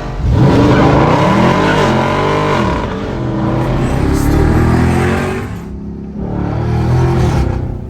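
Dodge Charger/Challenger V8 with its mufflers cut off, revving and accelerating hard. It pulls twice, with the pitch climbing and falling, and briefly drops off about six seconds in.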